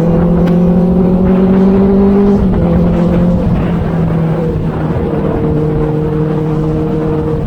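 Inline-four sport motorcycle engine running under way, recorded on board: the engine note climbs slightly, drops in pitch about two and a half seconds in, then holds steady, with wind rumble underneath.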